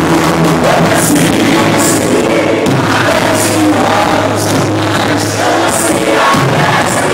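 Live rock band playing a song with singing over drums, with cymbal hits about once a second.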